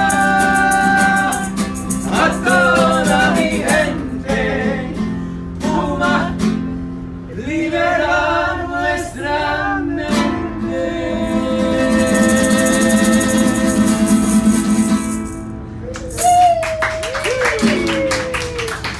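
Two men singing together over a strummed nylon-string classical guitar, with a maraca shaken along.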